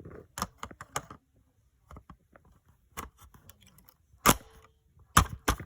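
Plastic clicks and clacks of a part being fitted onto a Nerf Ultra Elite Strife blaster, with scattered light clicks and a few louder clacks about four seconds in and near the end.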